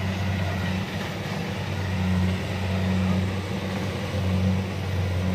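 Kubota DC-70 rice combine harvester running steadily as it works the paddy: a constant low engine hum under the clatter of its cutting and threshing machinery.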